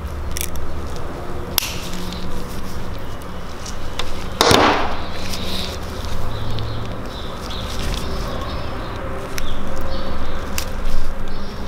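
Small hand tools and parts being handled at a workbench while old O-rings are pried off BMW S54 Vanos pistons: scattered light clicks and taps, with one louder, brief rasp about four and a half seconds in, over a low steady hum.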